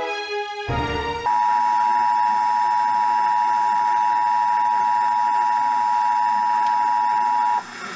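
Orchestral music ends in a short low boom, then the Emergency Alert System attention signal sounds: a steady two-tone beep held for about six seconds that cuts off abruptly near the end.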